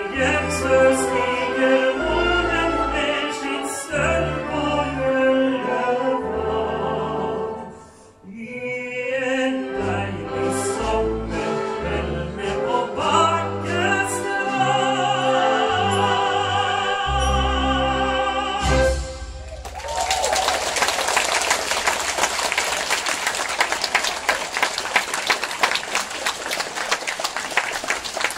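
Male singer with an orchestra in the closing bars of a song, ending on a long held note with vibrato over the final chord. About two-thirds of the way through the music stops and steady audience applause follows.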